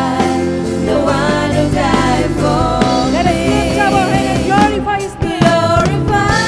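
Christian worship song: a singer holding wavering notes over a band's steady held chords and bass.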